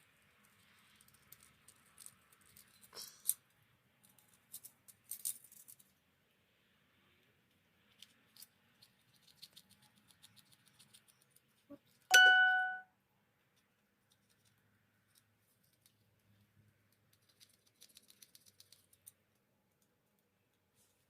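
Small metal parts and tools being handled during carburetor work: scattered light clicks and rattles, and about halfway through a single metallic clink that rings briefly with a clear pitch.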